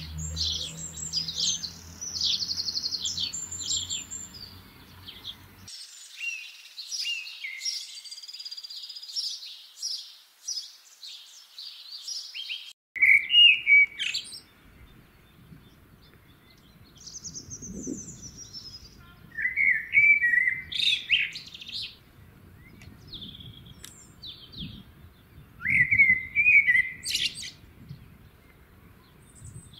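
Songbirds chirping, then a common blackbird singing three loud warbled phrases in the second half, each a low fluty start running up into a higher twitter. A low hum sits under the chirping during the first few seconds.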